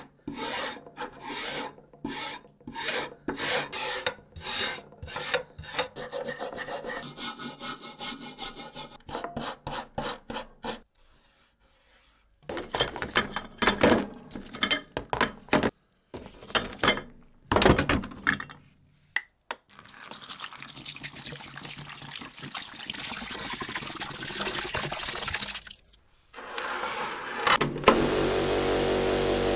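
Hand-tool rubbing or filing strokes, back and forth at about two a second, then irregular scraping with short pauses. Near the end a power tool starts up and runs steadily.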